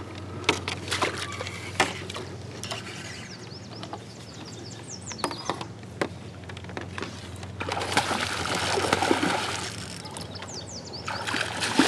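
Hooked muskie thrashing at the surface beside a kayak, with a spell of loud splashing about eight seconds in and more splashing near the end. A few sharp knocks come in the first two seconds, and birds chirp in the background.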